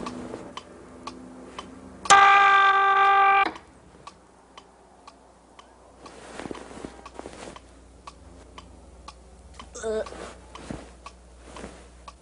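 Clock ticking steadily, about two ticks a second. About two seconds in, a loud held buzzing tone sounds for about a second and a half and cuts off suddenly. Near the end comes a brief wavering sound.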